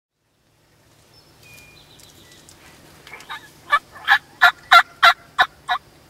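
Turkey yelping: a series of about eight short, evenly spaced notes, roughly three a second, getting louder and then trailing off.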